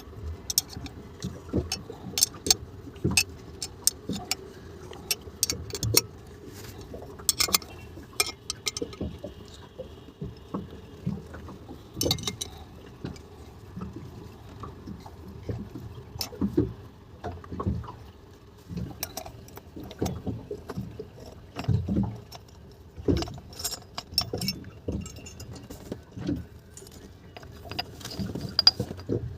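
Metal tools and small parts clicking and clinking irregularly as an Evinrude E-TEC outboard fuel injector is taken apart by hand, over a steady low hum.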